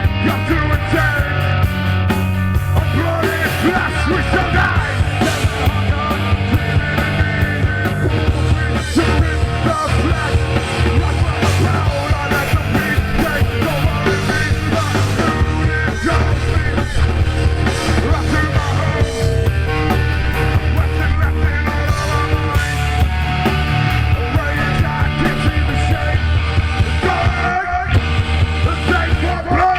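Loud live punk rock band playing a song: drums with cymbals, bass and guitar, with a sung, partly shouted vocal.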